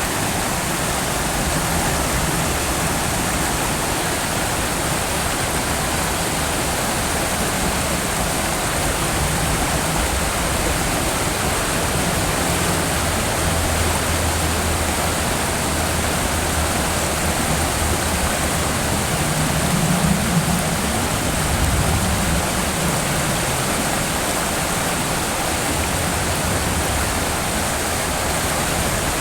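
Steady rushing of a river's current.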